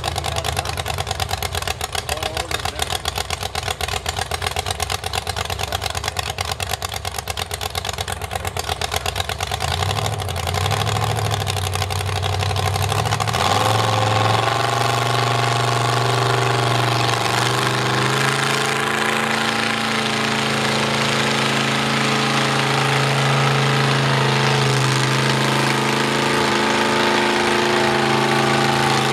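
Heavy engines running: a fast, lumpy idle for about twelve seconds, then an engine revs up and holds at a steady, louder speed under load as a backhoe tows a stuck lifted Dodge mud truck out of the mud.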